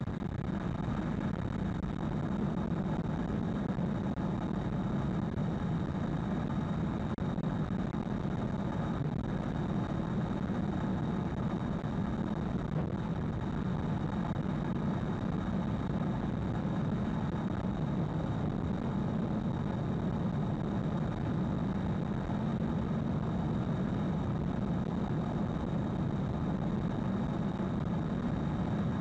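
Steady tyre and road noise inside the cabin of a 2020 Hyundai Ioniq Electric cruising at expressway speed, a low even rumble with no engine note, plus a thin steady high tone.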